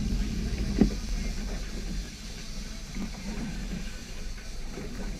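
Steady low rumble of a sport-fishing boat under way, engine and water against the hull, with a brief knock just under a second in.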